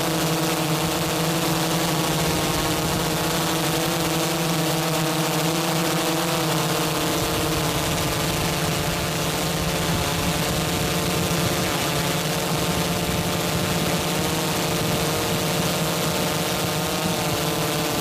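A small drone's motors and propellers humming steadily, recorded from on board, the pitch wavering a little now and then as it hovers and drifts.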